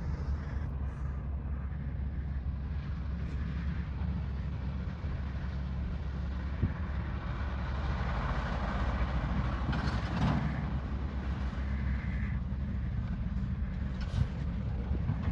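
Vactor vacuum truck's engine running as a steady low rumble, with a few faint clicks.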